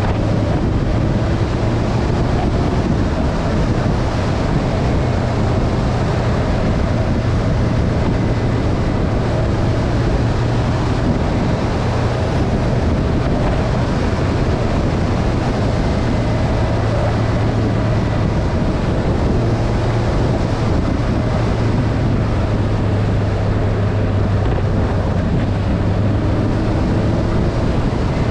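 Motorcycle engine running steadily at road speed, mostly buried under heavy wind rush on the microphone.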